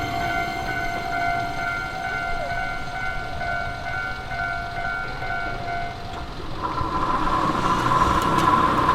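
Japanese railway level-crossing warning bell ringing steadily in a repeating electronic ding, then falling silent about six seconds in. A louder humming tone comes up near the end.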